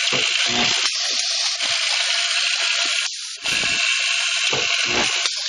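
Automatic cap nut welding machine running: its vibratory bowl feeders buzz steadily, rattling the nuts along the feed tracks. Several dull knocks come from the machine cycling, two close together near the end.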